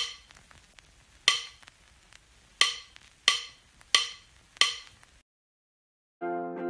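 Six sharp knocking clicks, each with a short ringing tail, at uneven intervals over the first five seconds, with fainter ticks between them. After a second of silence, plucked guitar music begins just before the end.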